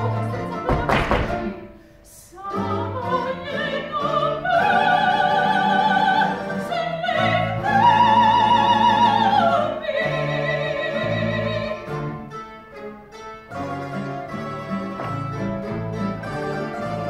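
Live music: a female vocalist sings long, held notes with vibrato over a string band. There is a loud accented chord about a second in and a brief lull just after it. The accompaniment goes on more quietly in the last several seconds.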